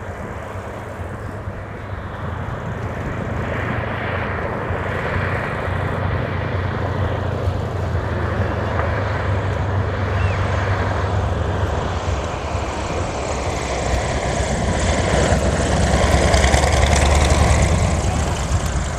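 Junkers Ju 52's three radial engines and propellers droning on a landing approach. The drone grows steadily louder as the plane comes closer, is loudest as it passes low about three-quarters of the way through, then starts to fade.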